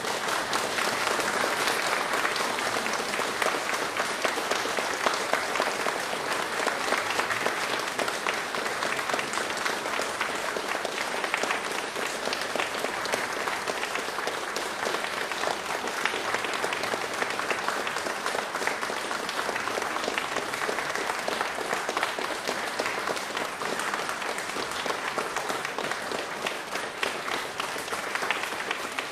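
A crowd applauding: dense, steady clapping of many hands that holds at an even level.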